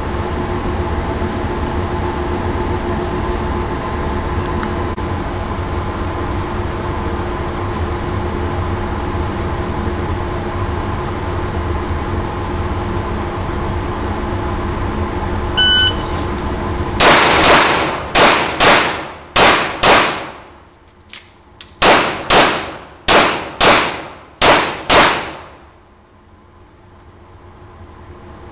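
Steady ventilation hum, then an electronic shot-timer beep, and a handgun fires two strings of about six shots each, roughly two shots a second, with a pause of about two seconds between the strings.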